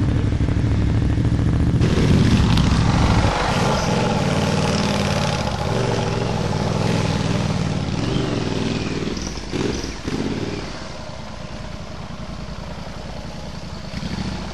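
Laden adventure motorcycle's engine revving hard under load as the bike is forced up a steep forest track. The engine is loudest for the first few seconds, rises and falls through the middle, and eases off about ten seconds in.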